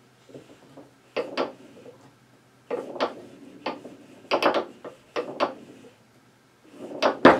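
Foosball ball being tapped back and forth between the plastic men of the five-man rod, a series of hard clacks with the rods rattling, ending in one loud sharp strike near the end as the ball is shot off the rod.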